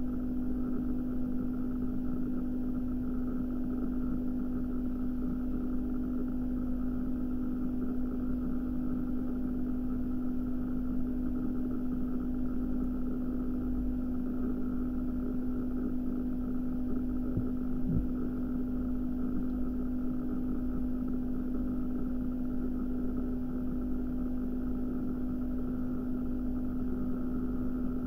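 A steady, unchanging hum with one strong constant low tone over a faint rumble, and a faint short sound about eighteen seconds in.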